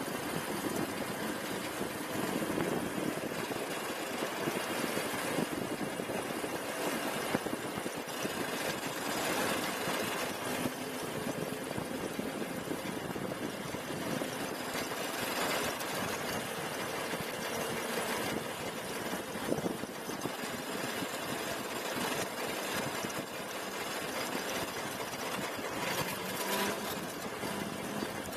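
Razor Ground Force electric go-kart driving steadily along an asphalt street: a continuous rough rumble of the drive and tyres on the road.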